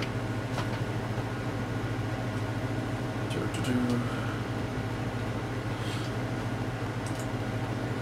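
Steady low machine hum, with a few faint clicks and taps scattered through it.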